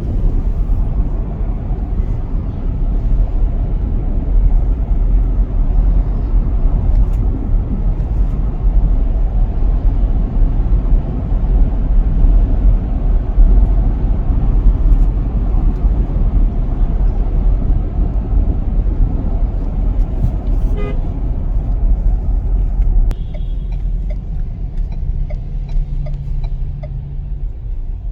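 Car on the road, heard from inside: a loud, steady low rumble of road and engine noise that eases off a little about three quarters of the way through. A car horn toots briefly.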